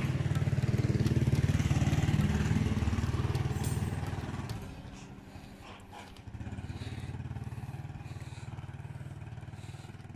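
A motorcycle engine running, loud for the first four seconds or so, then dropping away, with a quieter, steady engine drone returning about six seconds in.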